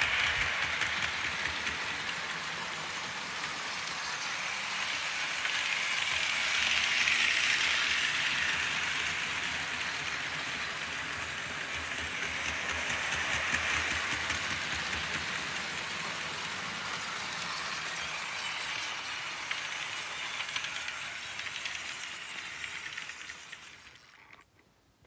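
A long Märklin HO model freight train, hauled by a BR 53 articulated steam locomotive, rolling on metal M-Track: a continuous rattling clatter of wheels on the rails. It swells and ebbs as the train comes closer and moves away, then fades out near the end.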